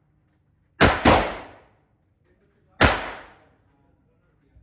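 A .22 LR pistol firing three shots, a quick pair about a second in and a third about two seconds later, each shot's crack ringing out in the echo of an indoor shooting range.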